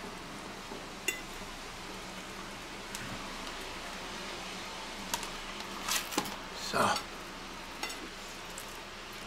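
Metal spoon scraping and clinking against a plastic coleslaw tub as coleslaw is spooned out. There is a sharp click about a second in, and the loudest scrapes and rustles come about six to seven seconds in, as the tub is put down and the sandwich is handled.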